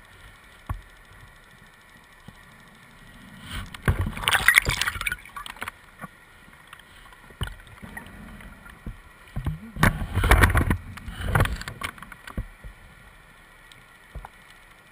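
Scuba diver's exhaled bubbles rushing from the regulator twice, each about two seconds long, with a few faint clicks in between.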